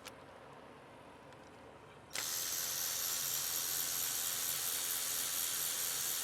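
A power tool running steadily for about four seconds, starting suddenly about two seconds in.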